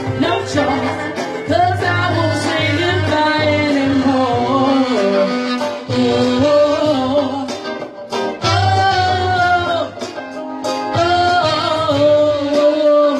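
A woman singing lead with a live band, her held, bending notes over electric guitar and a low pulsing bass, with saxophone joining near the end.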